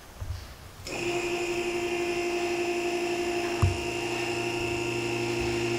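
A two-post car lift's electric hydraulic pump motor starts about a second in and runs with a steady hum as the lift raises a car, with a single clunk from the lift partway through.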